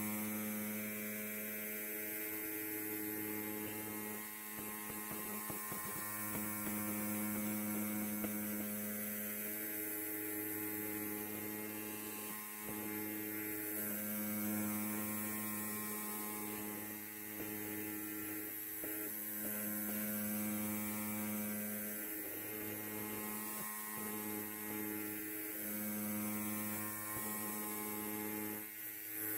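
Electric hair clipper running with a steady electric buzz, its strength wavering slightly and dipping briefly every few seconds.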